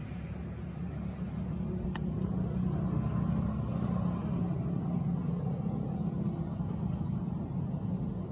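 Low, steady rumble of a motor vehicle engine running, swelling a little after about a second, with one faint click about two seconds in.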